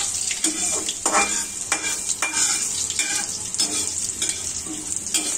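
Mustard oil sizzling in a metal kadhai with carom seeds, bay leaves and green chilli, while a spatula stirs and scrapes across the pan in repeated short strokes.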